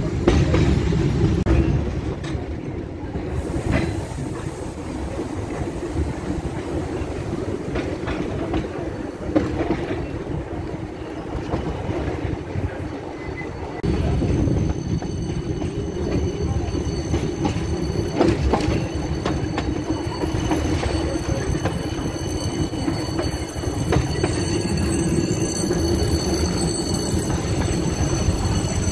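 Passenger train running along the track, heard from on board: a steady rumble of wheels on the rails with a high wheel squeal, and an occasional click.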